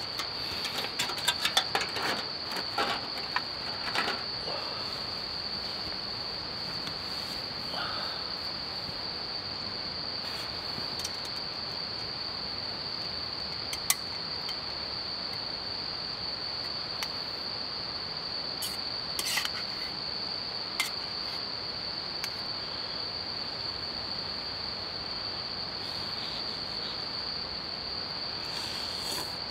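Crickets chirring in a steady, unbroken high drone on an autumn night. A flurry of clicks and rattles comes in the first few seconds, and a few single sharp clicks follow later.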